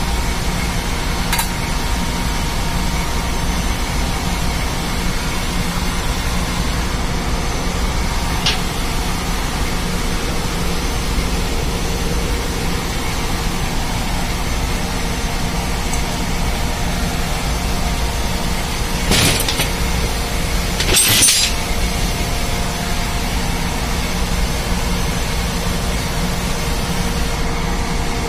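Steady, loud running of ship engine-room machinery, a constant hum and rumble. A few brief clinks of hand tools on the motor, the loudest two a couple of seconds apart about two-thirds of the way in.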